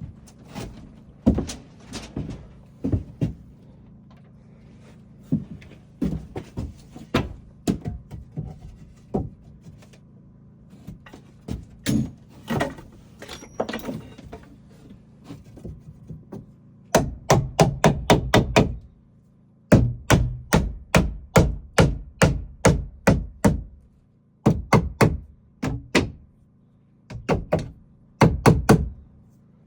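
Hammering on wood: scattered knocks at first, then from about halfway on, fast runs of blows at around four or five a second, broken by short pauses.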